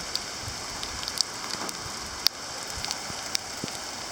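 Heavy rain mixed with small hail and ice pellets: a steady hiss of rain with scattered sharp ticks of pellets striking hard surfaces, one louder tick about two seconds in.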